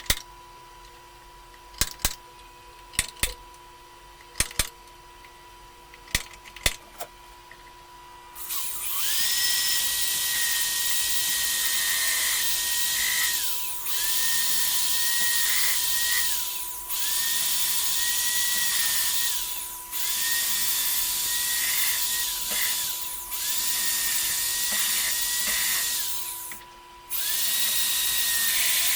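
A few sharp clicks, then a high-pitched electric drill running in repeated bursts of about three seconds each. Its whine spins up at the start of each burst and it stops briefly between them.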